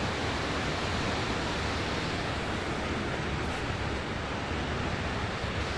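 Steady rushing of a large waterfall: an even, unbroken noise of falling water.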